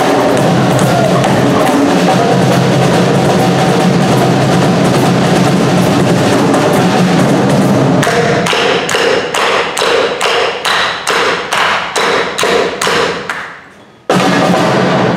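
Hand-drum ensemble of djembes, cajon and drum kit playing a dense groove. About halfway through it drops to unison hand claps at about two a second that fade away. A sudden loud final hit comes near the end.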